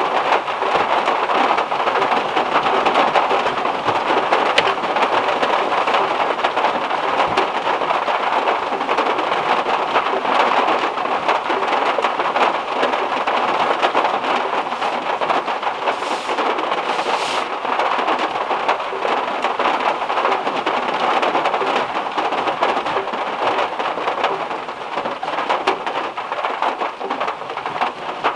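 Heavy rain drumming steadily on the metal roof of a Volkswagen Beetle, heard from inside the car as a dense, even hiss.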